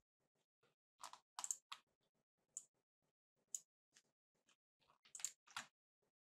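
Faint, sharp clicks of a computer mouse being used to draw, scattered irregularly with a few in quick pairs, the loudest clusters about a second in and near the end.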